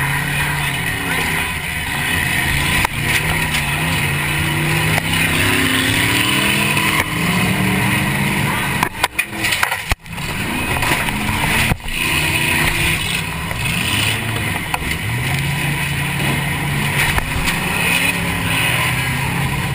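Demolition derby car engine revving up and down, heard from inside the car. A few sharp bangs land about halfway through, with the sound briefly dropping out.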